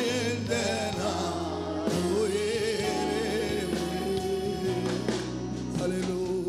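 A group of women singing a Tamil Christian worship song into microphones over instrumental accompaniment, holding long notes with vibrato.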